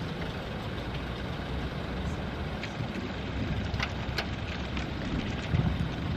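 A vehicle engine idling steadily, a low even rumble, with a few faint clicks.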